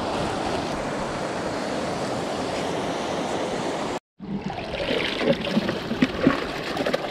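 Shallow river rapids rushing steadily. After a cut about four seconds in, irregular splashing and gurgling with small knocks as a plastic live-ayu box is handled in shallow water.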